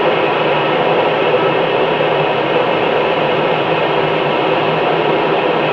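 GE J79 turbojet engine running steadily on a test stand: an even, unbroken roar that holds the same level throughout.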